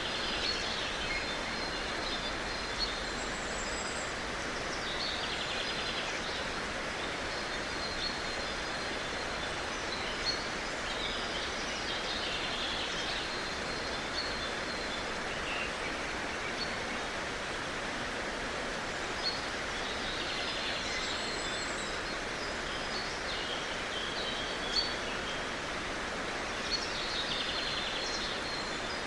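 Outdoor morning ambience: a steady hiss of background noise, with a bird singing a short trilled phrase that repeats about every seven seconds, and a few soft clicks.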